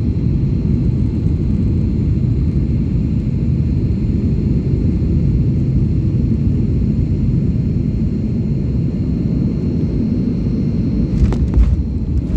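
Steady low rumble of an airliner during a landing attempt in strong wind, with a few faint clicks near the end.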